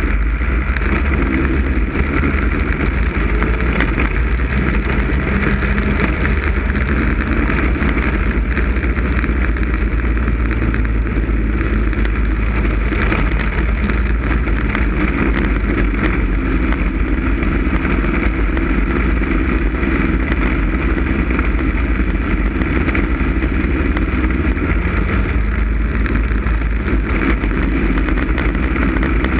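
Snowmobile engine running steadily at speed, heard close up from on board.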